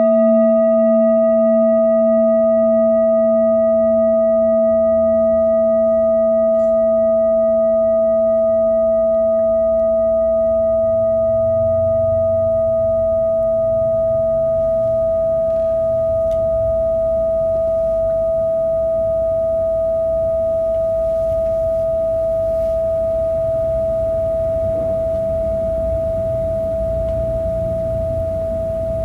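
Metal singing bowl ringing out after a strike: a steady mid-pitched tone over a lower hum that wobbles with a slow beat, plus fainter higher overtones, fading very gradually.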